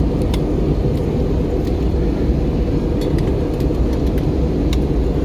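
Steady low roar of a jet airliner's engines and airflow heard inside the passenger cabin during descent, with a few faint clicks.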